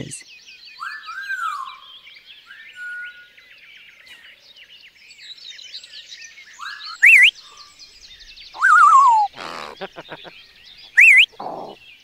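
Birds calling over a steady background of chirps: whistled glides early on, two loud, sharp rising calls about seven and eleven seconds in, and a falling, warbling call near nine seconds, with a few clicks around ten seconds.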